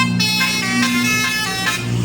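A bus's basuri telolet horn, a multi-note musical air horn, playing a quick tune of notes that step up and down over a steady low drone.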